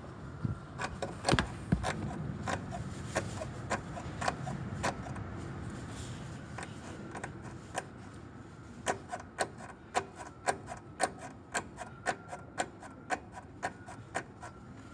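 Repeated sharp clicking and knocking from the front strut upper mount of a Suzuki Swift HT51S, irregular at first and then about two knocks a second. It is the sign of play in the mount, whose retainer rubber has worn out.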